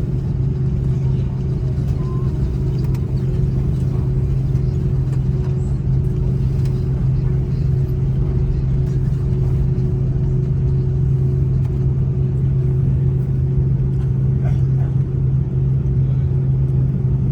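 Steady low drone in the cabin of an Airbus A330-323 taxiing, its engines at taxi power, with a faint steady hum above it.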